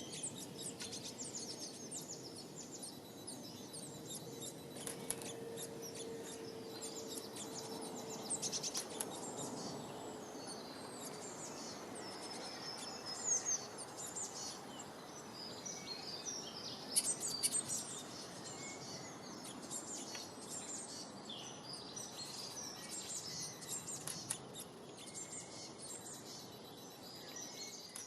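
Birds chirping: many short, high-pitched calls that keep coming one after another over a steady background hiss.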